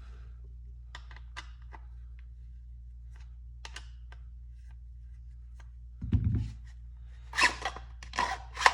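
Glock pistol being worked in and out of a stiff, tight-fitting Kydex holster: light plastic clicks and scrapes, a dull thump just after six seconds, then a few sharp clicking scrapes near the end.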